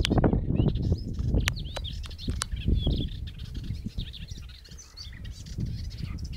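Small songbirds chirping and singing in many short, high, quick notes, over a low rumble that is loudest for the first few seconds and then fades.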